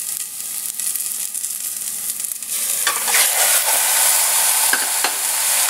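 Oil sizzling in a stainless steel pot with garlic, ginger and shiitake mushrooms frying; about two and a half seconds in, raw chicken pieces go into the pot and the sizzle grows louder and fuller, with a few knocks as the pieces land.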